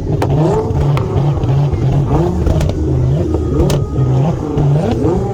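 Nissan GT-R R35's twin-turbo V6 revving repeatedly, its pitch climbing again and again over a deep rumble, with several sharp cracks.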